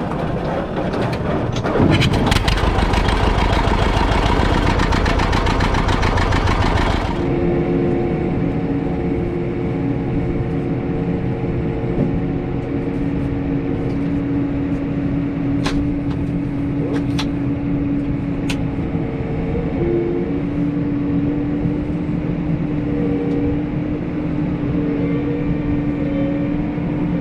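Tractor engine starting up and running hard. About seven seconds in the sound changes abruptly to a steadier drone with a constant hum, with a few sharp clicks partway through.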